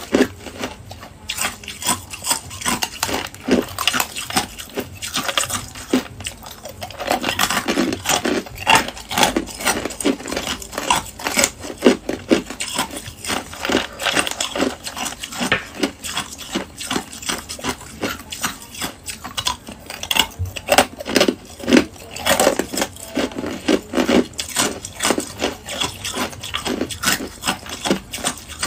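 Ice cubes clicking and rattling against each other and their containers as hands pick through a heaped tray and a cup of them, a quick irregular run of clinks that gets busier about a quarter of the way in.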